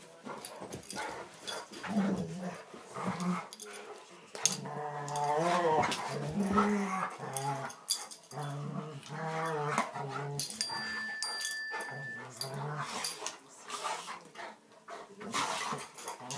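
Two dogs play-fighting: repeated long, low growls and grumbles that waver in pitch, with short scuffling clicks between them.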